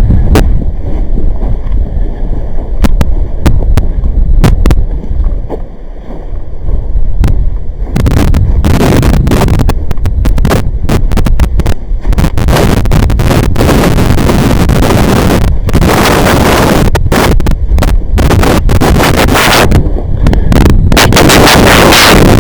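Loud, overloaded wind buffeting and crackling interference on the microphone over a steady low rumble, with a brief lull about six seconds in.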